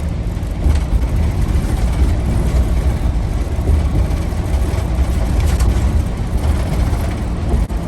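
Steady low rumble of a motor vehicle driving on a road: engine and tyre noise with no distinct events.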